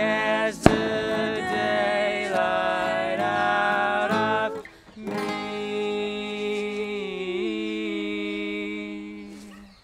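Closing bars of an acoustic folk song: strummed acoustic guitar under sung, held vocal notes, with a sharp click less than a second in. After a brief drop, a final chord and held note ring on, stepping down once and fading out near the end.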